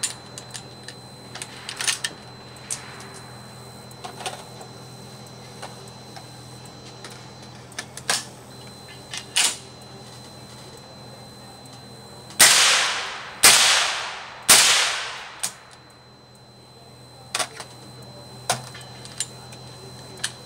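Three gunshots through a suppressor, about a second apart, each with a long fading tail. Weaker sharp clicks come now and then around them.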